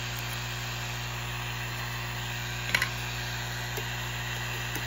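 Steady low electrical hum, with one short click about two and a half seconds in as a laser-cut plywood piece is pushed out of the sheet.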